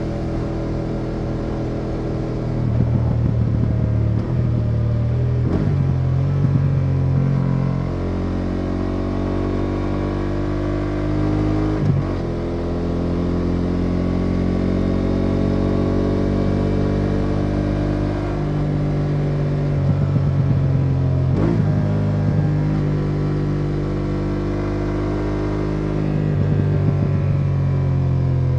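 BMW F850 GS Adventure's parallel-twin engine running at road speed, heard from the rider's seat. Its note rises and falls with the throttle and breaks briefly about three times, as at a gear change (fifth down to fourth).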